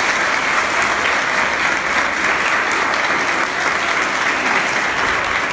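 A large group of students applauding steadily, a dense clapping that holds at an even level.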